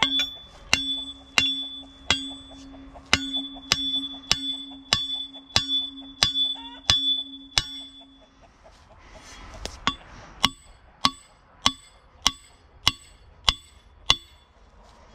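Hammer blows on the steel driver rod of a Wolf Fang earth anchor, driving it into the ground. The strikes come steadily, about one and a half a second. For roughly the first eight seconds each blow rings metallically; after that the blows are duller and do not ring.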